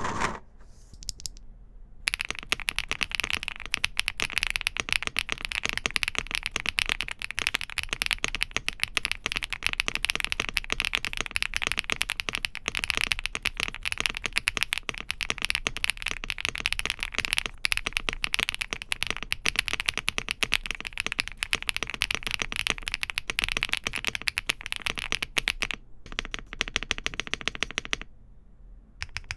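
Fast, continuous typing on a Bridge75 mechanical keyboard with Akko Mirror linear switches, a clear, clacky key sound. The typing starts about two seconds in, thins out near the end, pauses briefly and then picks up again.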